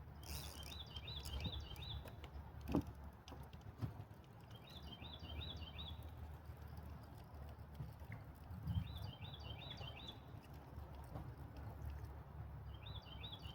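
A songbird singing a short phrase of quick high notes, repeated about every four seconds, over a steady low rumble.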